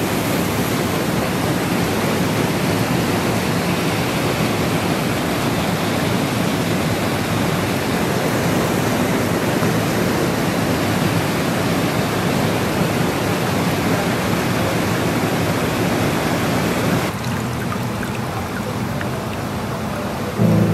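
Flowing river water rushing in a steady, loud wash of noise. About 17 seconds in it drops to a quieter, duller rush.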